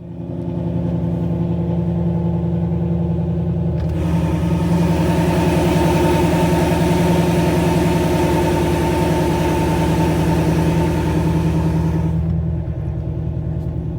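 Ford Mustang's 5.0 Coyote V8 idling steadily just after a cold start. A rushing hiss joins in about four seconds in and drops away near the end. The cold start sounds smooth, with no obvious misfire, as the engine is tested for a P0300 misfire code after a crank-sensor O-ring fix.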